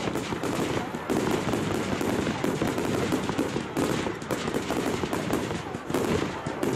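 Fireworks going off in a rapid, continuous run of bangs and crackles as aerial shells burst one after another.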